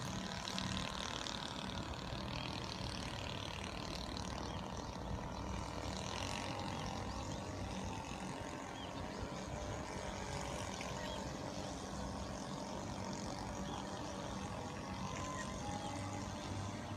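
An engine running steadily: a constant low hum with an even wash of noise over it.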